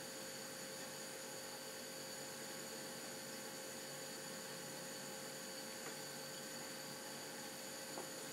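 Steady hiss with a faint electrical hum and thin whine tones, with a faint click near the end.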